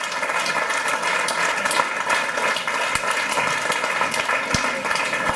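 Audience applauding, a dense steady clatter of many hands, with a few soft low thumps about three seconds in and again near the end.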